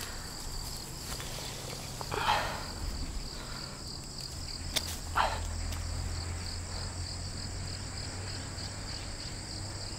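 Insects chirring in a steady, high, finely pulsing drone, with two short soft noises about two and five seconds in.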